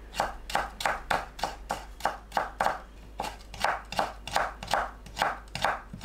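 Chef's knife julienning cucumber on a wooden cutting board: quick, even chopping strokes, about four a second, each blade stroke knocking on the board.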